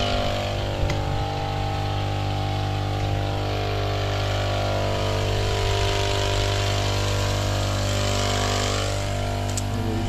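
Small petrol engine of a motorized crop sprayer running steadily at an even speed while pesticide is sprayed on tomato plants.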